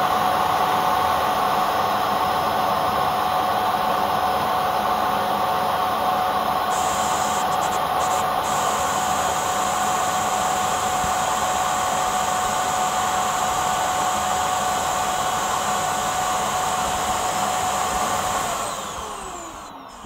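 Yeedi Vac Max self-emptying base station's suction motor running, very noisy and steady with a high whine, drawing the dirt out of the docked robot vacuum's dustbin. Near the end the motor winds down, its pitch falling as it stops.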